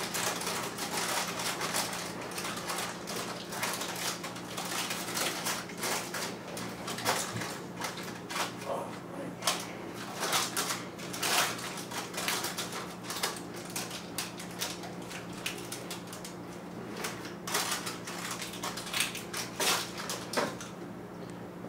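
Parchment paper crinkling as hands press it down onto a pan of layered bar filling topped with chopped pistachios, packing it down. The sound is a dense, irregular run of crinkles, crackles and crunches.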